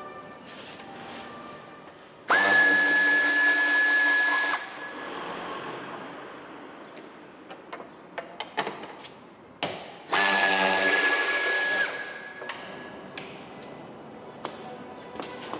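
Pneumatic ratchet undoing a car door's hinge bolts, running in two bursts of about two seconds each with a steady high whine. Light clicks and knocks of the tool and the door come between the bursts.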